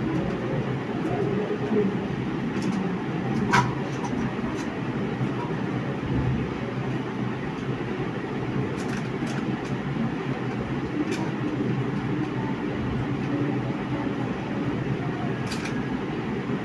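Oil sizzling steadily around lentil-and-egg patties shallow-frying in a pan, with a few sharp clicks of the spatula against the pan as they are turned.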